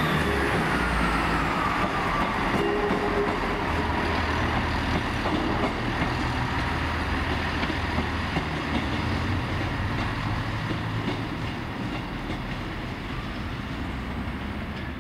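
Northern Class 158 diesel multiple unit pulling out under power, its engine note and wheel-on-rail noise slowly fading as it draws away. A whine falls in pitch over the first couple of seconds.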